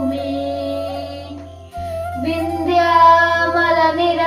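A boy singing a Malayalam patriotic song solo, drawing out long notes, with a short break about a second and a half in before the next line starts.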